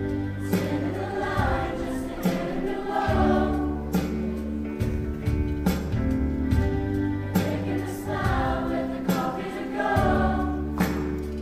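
A choir singing with a band accompaniment: steady bass notes under the voices and sharp drum-like hits every second or two.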